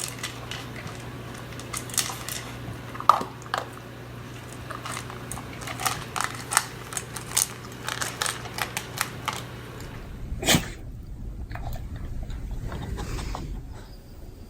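Beagle chewing and mouthing: an irregular run of wet clicks and smacks, with one louder click about ten seconds in. A steady low hum sits underneath and stops about ten seconds in.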